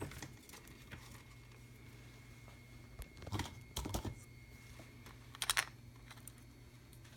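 Scattered small clicks and knocks of a pedal's circuit board and tools being handled on a workbench: a couple about three and a half to four seconds in, and a quick cluster of sharp clicks about five and a half seconds in, over a steady low hum.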